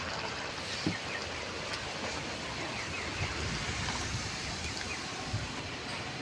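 Yogurt fish curry bubbling steadily in a kadai, a continuous hiss like rain, with a few soft clicks.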